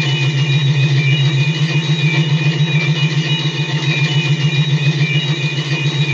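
Science-fiction starship sound effect: a loud low hum that throbs in a rapid, even pulse, with thin steady high tones ringing above it.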